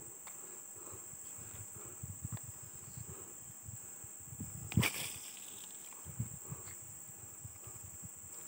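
Steady high-pitched drone of insects from the riverside forest. About five seconds in there is a single sharp swish as a fishing line is cast, and soft low knocks of handling run throughout.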